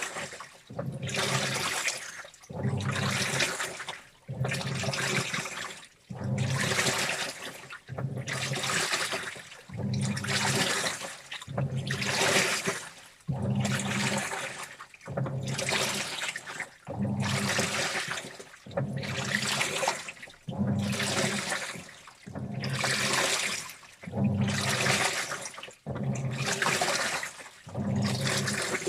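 Washing machine in its wash cycle: the drum turns in repeated strokes about every second and a half, each a swish of sloshing water over the motor's hum, with short pauses between.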